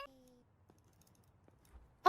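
Near silence: a short faint tone trails off in the first half second, then a few faint clicks.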